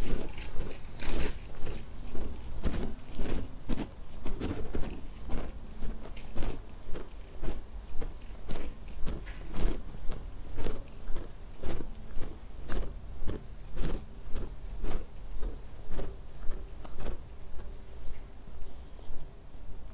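Footsteps at a steady walking pace, about two steps a second, growing fainter over the last couple of seconds.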